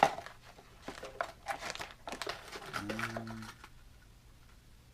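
Crinkling and rustling of plastic lure packaging being handled and opened, with a sharp click at the start; the handling stops a little past two-thirds of the way through.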